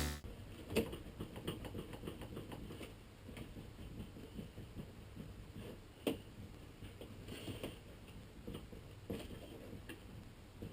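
Faint, scattered light clicks and taps in a small room, with one sharper click about six seconds in.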